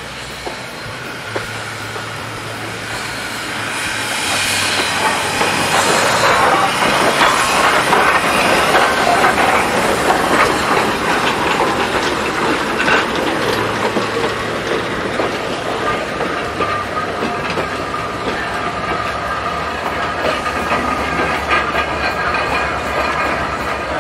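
Steam train passing close by. The locomotive goes past, growing louder from about four seconds in, and then its coaches roll by with wheels clattering over the rail joints.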